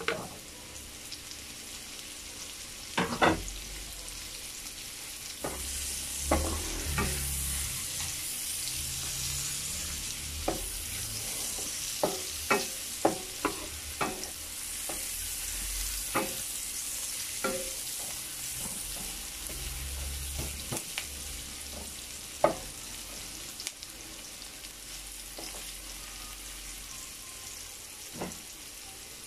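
Sliced onion and chopped garlic sizzling in a wok, the sizzle growing louder a few seconds in, with a wooden spatula knocking and scraping against the pan as it stirs.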